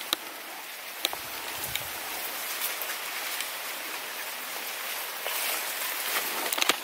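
Maize leaves and stalks rustling as someone pushes through a cornfield: a steady dry hiss of leaves brushing past, with a few sharp clicks and snaps.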